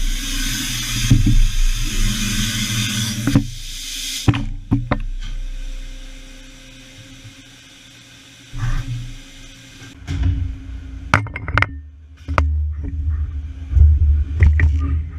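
Matsuura MAM72-35V 5-axis CNC machining center at work. A loud hiss stops suddenly about three seconds in, then a few sharp clicks, a quieter stretch with a faint steady hum, and from about ten seconds in a low rumble with clunks and knocks.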